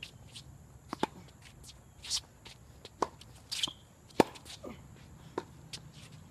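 Tennis rally on a hard court: a series of sharp pops as the ball comes off the racket strings and bounces on the court, the loudest about four seconds in, with shoe scuffs between shots.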